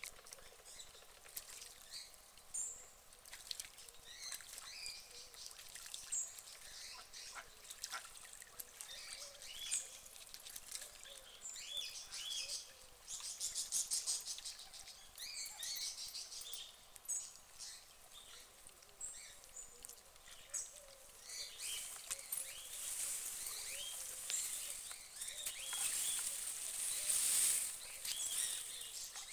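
Small birds chirping and twittering again and again in short calls over a quiet outdoor background, with a hiss that swells over the last several seconds.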